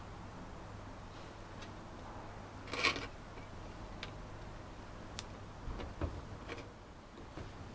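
Scattered light clicks and taps of small hand tools being handled during body-filler work, with one louder brief scrape about three seconds in, over a low steady hum.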